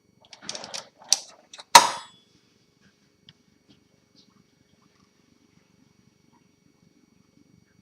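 A few light clicks and knocks of something being handled, ending in one sharp knock about two seconds in, then only a faint low rumble.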